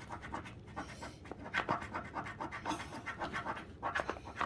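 Scratching off the coating of a scratch-ticket-style paper map, a run of quick, uneven rubbing strokes.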